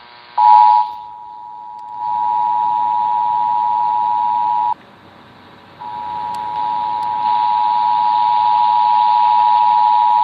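Emergency Alert System two-tone attention signal (853 and 960 Hz sounding together) relayed over AM radio with a background hiss, announcing a Required Monthly Test. The steady dual tone cuts out for about a second partway through, then resumes.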